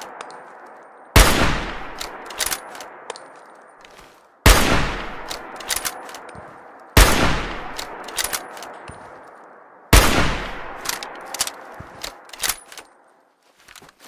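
Hunting rifle firing four single shots about three seconds apart. Each shot has a long echoing tail and is followed by a few sharp metallic clicks and clinks.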